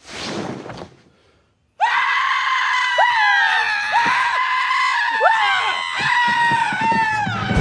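A quick cloth swish as a sheet is pulled off, then after a short pause loud, sustained screaming: a man screaming at length, with a second screaming voice overlapping him and sliding up and down in pitch.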